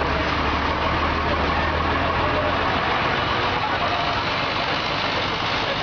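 A large truck's engine running close by amid busy street noise; its low steady hum drops out about two and a half seconds in.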